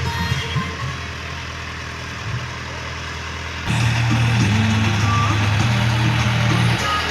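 Music on a DJ sound system fades to a quieter stretch, then a loud, sustained deep bass tone comes in suddenly and steps to a different pitch a few times.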